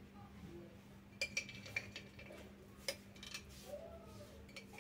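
A steel spoon clinking lightly against steel dishes about half a dozen times while ghee is spooned into flour, with short separate clicks.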